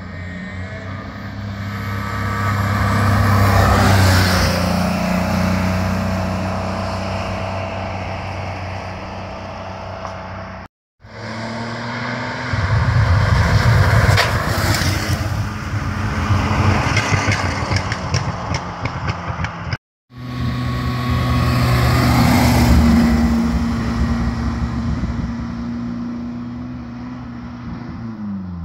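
Historic rally cars passing one at a time, three separate passes. Each engine grows louder as the car approaches, is loudest as it goes by, then fades. The middle pass, an air-cooled Porsche 911 flat-six, is the loudest and most crackly, and near the end the last car's engine note drops in pitch.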